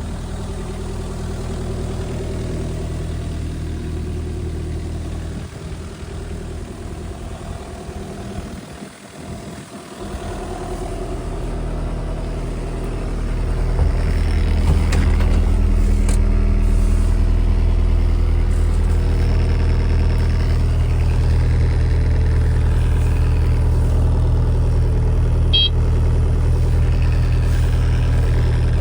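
Kubota KX027-4 mini excavator's diesel engine running steadily. It dips quieter about nine seconds in, then rises over a few seconds and runs louder for the rest.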